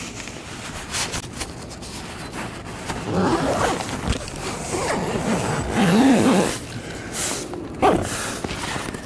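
Zipper on a hammock's interior windshield being pulled shut in several long rasping strokes, the pitch of the rasp rising and falling as the pull speeds up and slows, with a few sharp clicks of the pull and fabric near the end.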